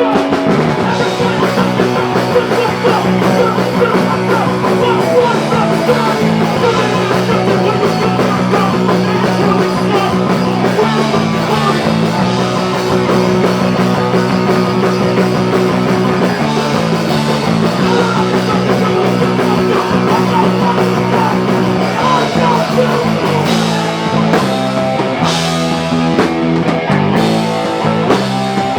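Live punk rock band playing a cover song, loud and without a break, with guitar and drums over a bass line that moves in steps.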